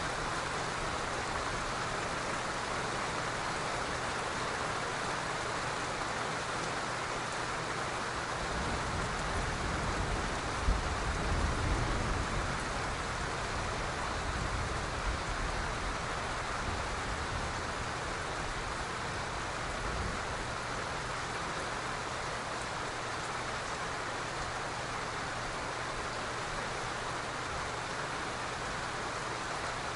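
Steady rain falling. A low rumble of distant thunder swells and fades about a third of the way through.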